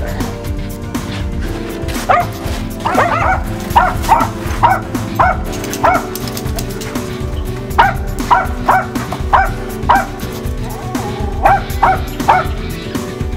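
Dogs barking in quick runs of short, high barks, four runs of several barks each, over background music.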